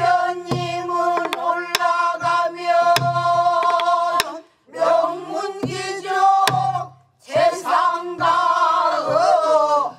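Several voices singing a pansori phrase together in long held, wavering notes, in three phrases with short breaks. A buk barrel drum keeps time under the singing, with sharp stick knocks and low thuds.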